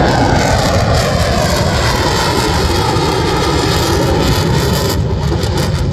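F-16 fighter jet's single turbofan engine, loud as it flies past and away, its pitch slowly falling.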